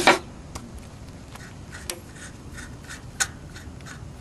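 A 17 mm wrench being worked on a small Yanmar diesel's fuel injector line nut, cracking it open to bleed air from the fuel system: a short scrape at the start, then light metal clicks about every two-thirds of a second.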